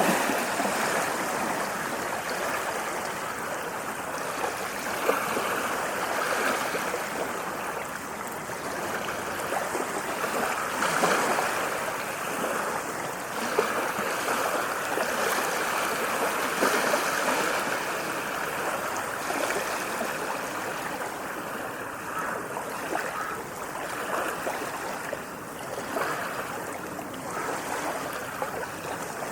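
Small waves washing and lapping: a steady rush of water that swells and eases every few seconds, without big breaking crashes.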